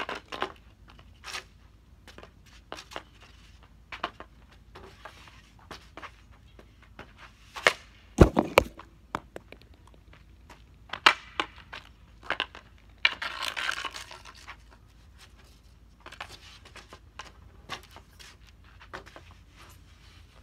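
Hockey stick blade clacking and scraping on a plastic shooting pad as pucks are handled and shot: scattered sharp clacks, the loudest a double crack about eight seconds in, and a longer rough scrape about thirteen seconds in.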